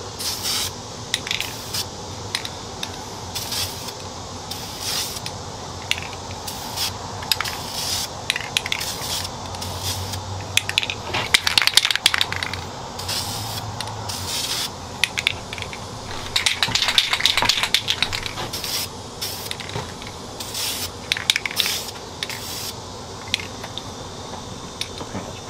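Aerosol spray-paint can hissing in many short bursts, with a few longer passes, as brown paint goes onto the rifle. About halfway through there is a stretch of quick rattling.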